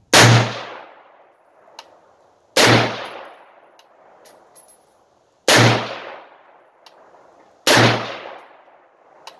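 Springfield Armory Saint Victor AR-15 rifle with a muzzle brake firing 5.56 mm reloads: four single shots two to three seconds apart, each a sharp crack with a short echoing tail. Faint clicks fall between the shots.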